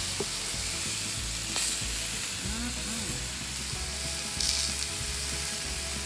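Bison bratwursts and buns sizzling on a Blackstone flat-top griddle, a steady frying hiss with a brief louder flare of sizzle a little past halfway.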